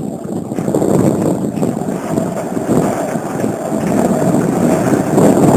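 Skateboard wheels rolling on a concrete floor: a steady, loud rumble from a stacked triple-decker skateboard, growing louder toward the end.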